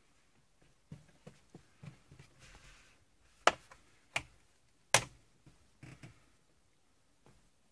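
A few soft knocks, then three sharp clicks about a second apart, followed by two light taps.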